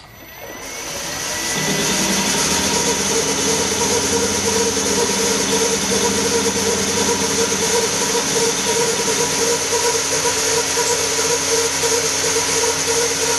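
Milling machine running steadily with a pitched whine, after building up over the first two seconds as the spindle comes up to speed, while an end mill faces off the end of a piece of metal bar.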